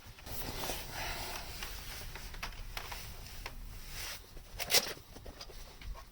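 Rustling handling noise as a Commodore 64 is unpacked and turned over on a soft cloth, with a few small clicks and one sharp knock about three-quarters of the way in.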